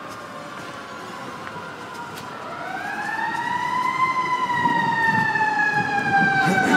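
Fire apparatus siren wailing. The pitch falls slowly, sweeps up sharply about two and a half seconds in, then slowly falls again, and the siren grows louder as the truck approaches.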